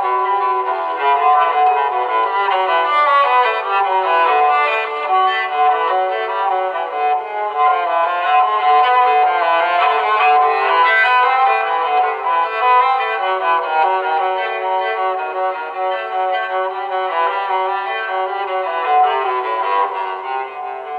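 A phone's built-in tone playing back through the phone: a continuous violin-like melody, fading out near the end.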